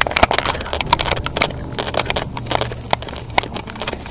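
Footsteps crunching through dry leaves and brush: a rapid, irregular crackle of snapping and rustling.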